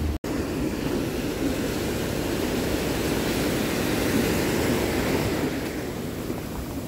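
Surf washing in over sand at the water's edge: a steady rush of breaking waves and foam, broken by a split-second gap just after the start.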